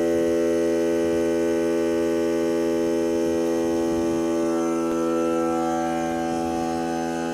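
Electric air compressor running steadily, a constant hum with a strong pitch, as it pumps air into a tire being refilled from flat.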